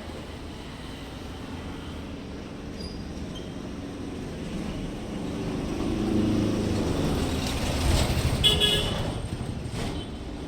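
Street traffic: a motor vehicle passes close, its engine rumble building over several seconds and then fading, with a short horn toot near the end.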